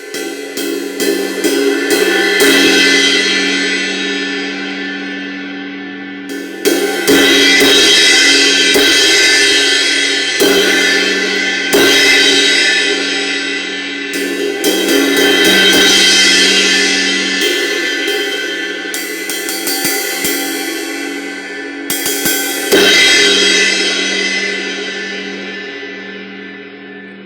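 Sabian XS20 18-inch Control Crash cymbal struck repeatedly in several clusters of hits, each left to ring and wash out before the next. The last hits, near the end, fade slowly away.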